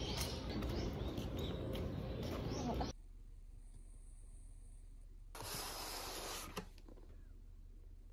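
Outdoor background noise with faint bird chirps, cut off abruptly about three seconds in by a quiet room. About two seconds later a cardboard box of household packets is handled with a brief scraping rustle and a small click.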